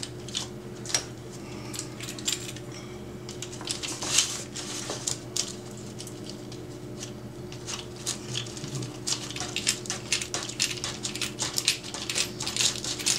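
Irregular small clicks and clinks of a steel screw and screwdriver against 3D-printed plastic gears and frame as the gearbox is put together and the screw is turned, coming thicker and faster in the last few seconds.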